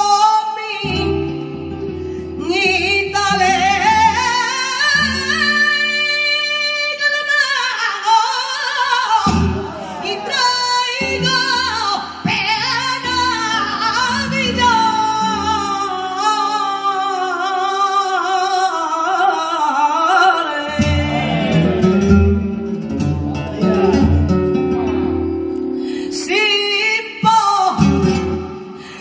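Female flamenco singer singing a cante de Levante in long, ornamented melismatic lines over flamenco guitar. The guitar plays mostly alone for the first couple of seconds before the voice comes in.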